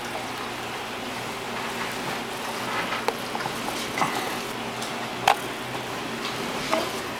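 Steady hiss of aquarium water and bubbling, broken by a few short sharp clicks, the loudest about five seconds in.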